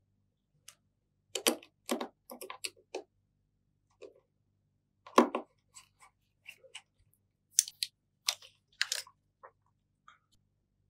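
Irregular small clicks and taps of a precision screwdriver and fingers handling an opened iPhone 7 as it is put back together, about a dozen in all, the loudest about two seconds in and about five seconds in.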